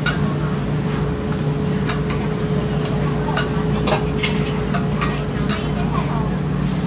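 Oyster omelettes frying on a flat griddle, with irregular sharp clicks and scrapes of a metal spatula against the metal over a steady low hum.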